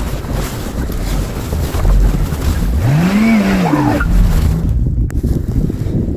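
A car revving once, its pitch rising and then falling, as its tires spin in deep snow, over a heavy rumble of wind on the microphone.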